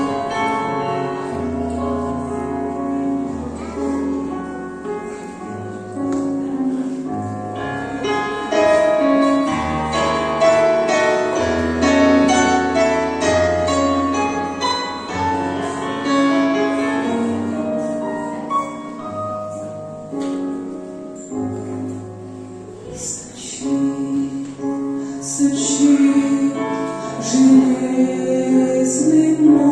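Keyboard introduction to a Christian hymn: a melody over long held bass notes. Singing voices join about 23 seconds in.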